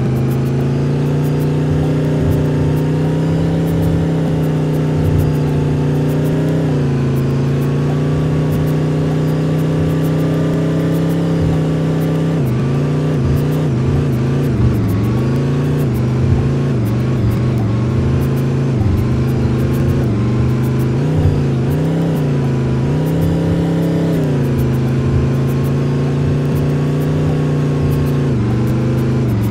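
A tourist bus's engine running under load on a rough mountain track. Its note holds steady at first, then rises and falls repeatedly from about halfway through as the throttle changes, with light clicking throughout.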